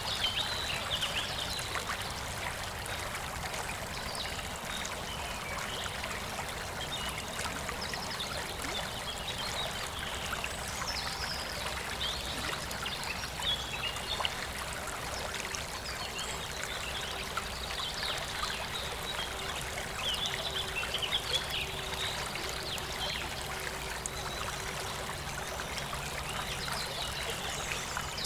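A stream running steadily, with birds chirping on and off above it.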